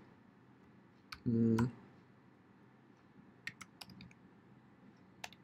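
Quiet typing on a computer keyboard: scattered single key clicks, a quick run of several keystrokes about three and a half seconds in, and a few more near the end.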